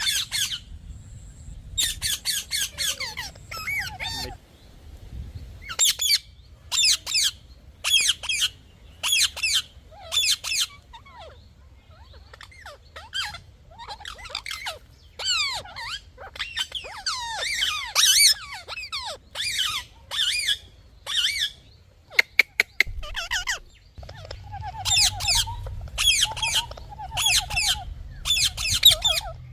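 Parrot calling over and over: short, high calls about once a second, in runs with brief pauses between them.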